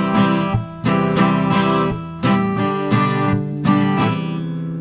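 Acoustic guitar strumming chords in a steady rhythm, an instrumental interlude with no singing, dying down a little near the end.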